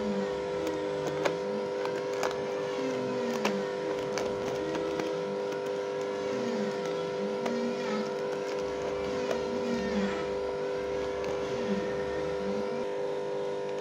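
A steady mechanical hum made of several held tones, over scattered light clicks and rustles as a plastic fish bag is handled in water.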